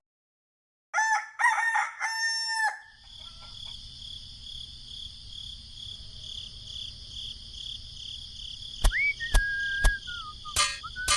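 A rooster crowing once, in a few short rising notes and a long held final note, starting about a second in. A steady high-pitched hum follows, broken by a few sharp clicks near the end.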